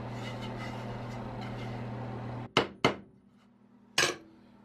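Steady low background hum that cuts off abruptly. Then two sharp wooden knocks in quick succession and a third about a second later, from finger-jointed wooden drawer boards being handled and knocked together.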